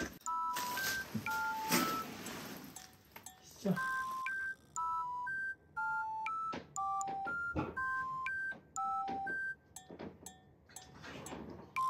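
Background music: a simple melody of pure, beep-like electronic tones, a few short notes a second, with a few soft knocks and rustles underneath.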